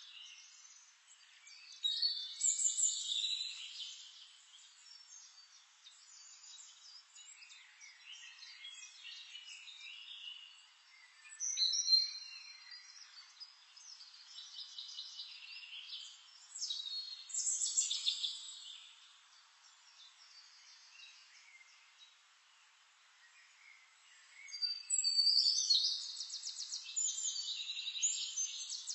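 Songbirds singing and chirping in repeated bursts of high trills, with a longer, denser bout of song near the end, over a faint steady hiss.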